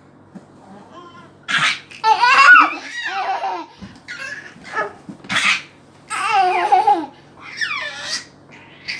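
Babies laughing in repeated short bursts while they play rough, starting about a second and a half in.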